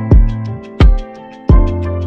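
Background music with a steady beat: a low drum hit about every 0.7 seconds, lighter clicking hits in between, and sustained bass and melody tones.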